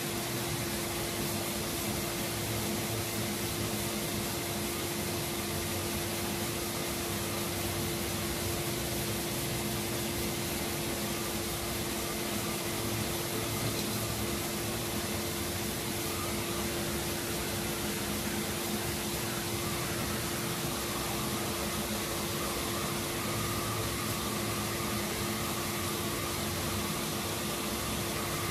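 Dust extraction vacuum running with a steady hum and hiss, drawing through the hose of a hand sanding block as body filler is hand-sanded with 180-grit paper.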